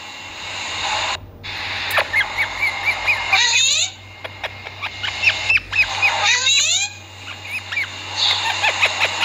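Green parakeet calling: three or four harsh screeching bursts, each under a second long, with runs of short, quick chirps between them.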